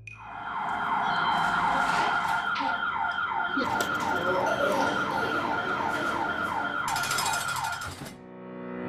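Security alarm siren sounding, a fast repeating downward sweep of about three whoops a second, with a burst of hiss just before it cuts off about eight seconds in.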